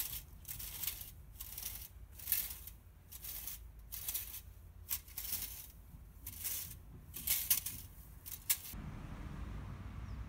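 Wire fan rake scraping through dry lawn grass in quick repeated strokes, about two a second. Near the end the strokes stop and a steady outdoor hiss takes over.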